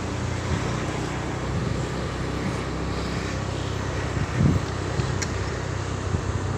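A vehicle engine running steadily, with a short thump about four and a half seconds in.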